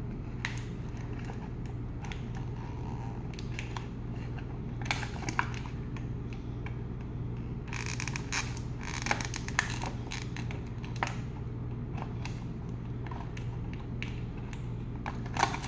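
Clear plastic blister packaging crinkling and clicking as a small child's fingers pick and press at it, in scattered crackles with a busier stretch a little past halfway. A steady low hum runs underneath.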